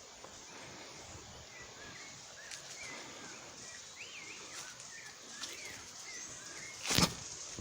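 Small birds chirping and warbling in a quick series of short notes over a steady background hiss, with one sharp, loud knock near the end.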